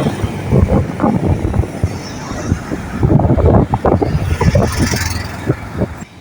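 Road vehicle noise: a car's engine and tyres running, a loud, uneven low sound that drops away at the very end.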